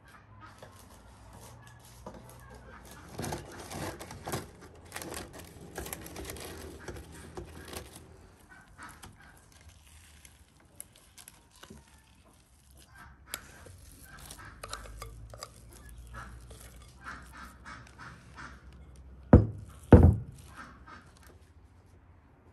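A spoon scraping thick batter from a glass bowl into a parchment-lined cake tin, with scattered clinks and two sharp knocks near the end. Farmyard fowl call in the background.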